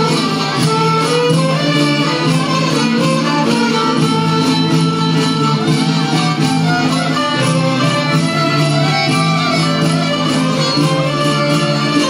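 Albanian folk band playing live: violins and accordion carry the melody over guitar and a jingled frame drum keeping a steady beat.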